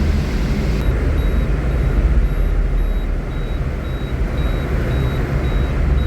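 Car driving through a long road tunnel: a steady low rumble of engine and tyre noise. From about a second in, a faint high beep repeats about twice a second.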